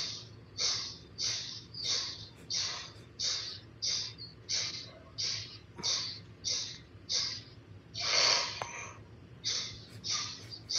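Kapalbhati breathing: short, forceful exhalations through both nostrils, about three every two seconds, each one pushed out by pulling the belly in. One longer, louder breath comes about eight seconds in.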